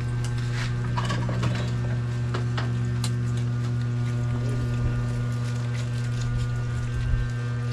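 A steady low machine hum runs throughout, with scattered light clicks and taps of spoons and hands on plates and foil as people eat.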